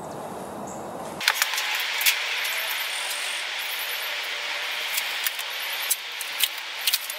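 Low room hum, then, about a second in, a sudden change to a steady outdoor hiss with scattered sharp clicks and rustling as a cloth cover is handled and pulled off an air compressor's pump head.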